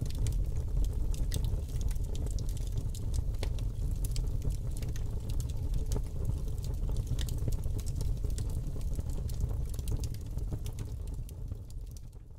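Fire crackling in a metal bin: irregular sharp crackles and pops over a low rumble, fading out at the end.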